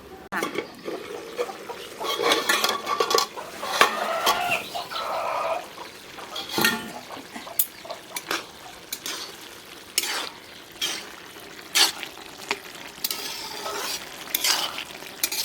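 Metal spoon stirring and scraping in a cooking pot, with repeated irregular clinks and scrapes against the metal.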